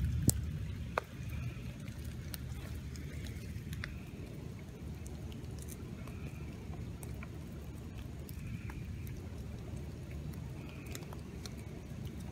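Rainstorm: scattered drips tapping on wet leaves and soil over a low, steady rumble, with a couple of sharper knocks in the first second.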